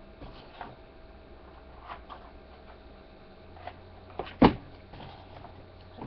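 Small handling noises of paper and scissors at a craft table: scattered light rustles and clicks, with one sharp knock about four and a half seconds in.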